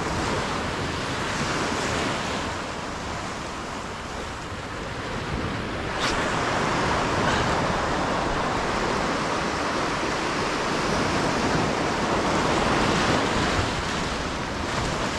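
Small waves breaking and washing over a flat reef-rock shoreline, with wind blowing across the microphone. The wash gets a little louder about six seconds in.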